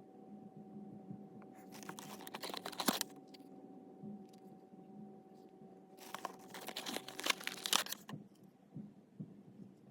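Paper and cardboard packaging being handled and opened: two stretches of crinkling and tearing, one about two seconds in and a longer one around six seconds in, with a few small clicks, over a low steady hum.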